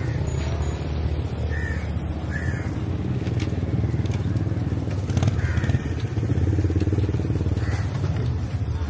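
Street noise heard while riding a bicycle: a steady low rumble of wind on the microphone and passing traffic. Over it come a few short, high calls, about four in all, and a single sharp click about five seconds in.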